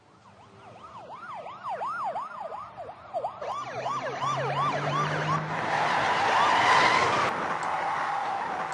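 Emergency vehicle sirens in a rapid rising-and-falling yelp, speeding up and growing steadily louder as they approach. From about five and a half seconds in, a loud rushing vehicle noise joins them, loudest near the end.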